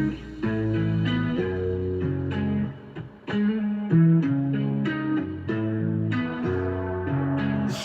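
Electronic music with plucked guitar-like melody notes over a bass line, played back through a ZK-MT21 Bluetooth amplifier and speakers.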